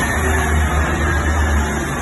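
Northern Class 158 diesel multiple unit running past close by: a loud, steady rumble of its diesel engines and wheels on the rails.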